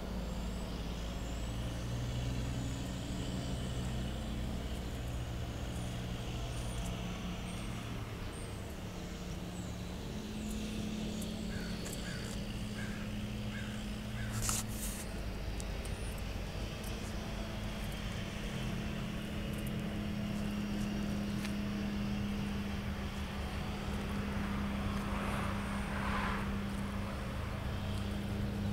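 Steady low engine drone, an idling motor running without change of speed, its pitch stepping up slightly about a third of the way in. A quick run of about five chirps and a sharp click come near the middle.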